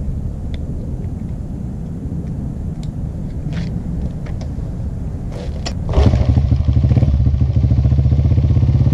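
Honda CRF50 pit bike's small single-cylinder four-stroke engine running on its original CDI unit, with a steady low rumble that grows clearly louder about six seconds in. It runs with the stock CDI where the replacement performance CDIs would not start it, which the owner takes as a sign that those units are defective.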